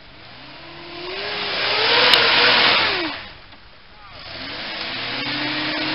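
Mitsubishi Shogun 4x4's engine revving hard twice as it climbs a muddy slope. Each rev rises in pitch, holds and falls away, and there is a short dip between them. A single sharp click comes at the peak of the first rev.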